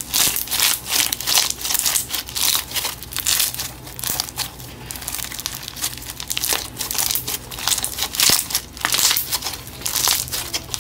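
Clear slime packed with pearl beads being squeezed and kneaded by hand, with a dense, irregular crackling all through.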